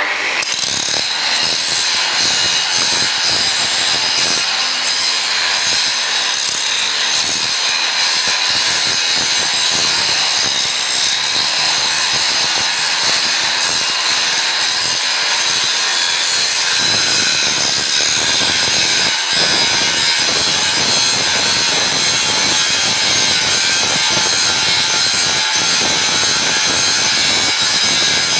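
Angle grinder with an abrasive disc grinding a steel bar, starting abruptly and then running steadily with a high whine over the rasp of the disc on the metal. The disc is grinding off the bar's surface to clean it for forge welding.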